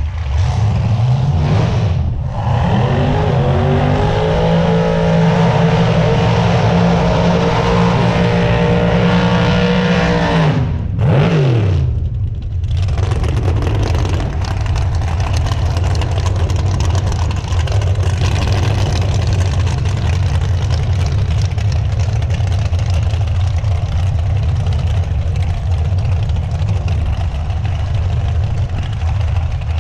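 Car engine revving up and held at high revs for about eight seconds, then dropping away, followed by steady heavy engine rumble.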